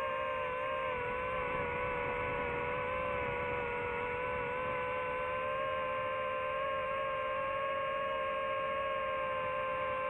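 DJI FPV drone's motors and propellers whining steadily in flight: one held pitch with its overtones that wavers slightly with the throttle.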